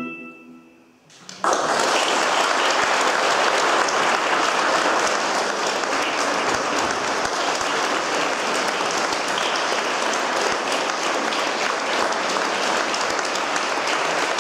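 The last chord of the music dies away, and about a second and a half in, audience applause breaks out suddenly and continues steadily.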